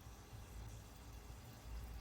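Near silence: a faint steady low hum with light hiss, room tone.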